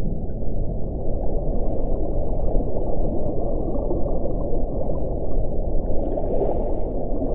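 Underwater recording of whale sounds: a steady low rumbling and gurgling noise with no clear held call, and a faint brief hiss about six seconds in.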